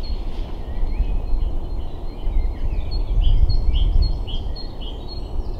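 Small birds singing, short high notes repeated about twice a second, over a loud, uneven low rumble that peaks a little past the middle.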